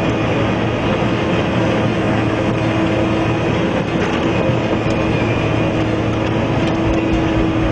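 Albach Diamant 2000 self-propelled wood chipper running under load as brush and small trees are drawn in and chipped: a loud, steady mechanical noise with a constant hum.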